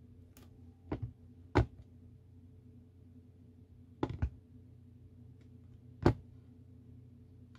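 A few short, light knocks as a smartphone is set down and shifted about on a wireless charging tray with an aramid-fibre surface. The loudest come about a second and a half in and again near six seconds in, with a quick pair just after four seconds.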